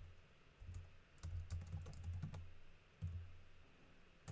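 Typing on a computer keyboard: irregular keystrokes in short quick runs with brief pauses between them, each press a click with a soft thud.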